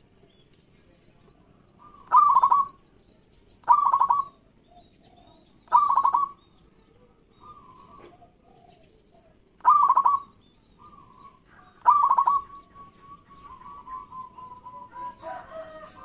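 Zebra dove (perkutut) cooing: five loud, short bursts of rapid stuttering coos, each about half a second long and spaced two to four seconds apart, with soft single notes between them.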